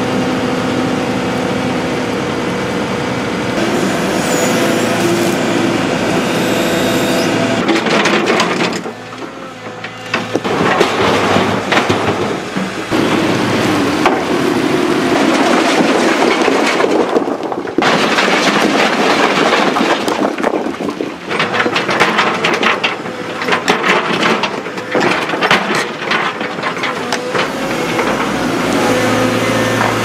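Excavator's diesel engine running steadily, then rocks grinding and clacking as natural stones are moved and set into place, with many sharp knocks from about ten seconds in.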